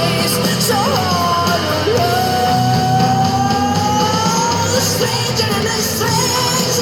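Rock song with singing and a long, slightly rising held note, played through a homemade ammo-can Bluetooth speaker with 4-inch drivers.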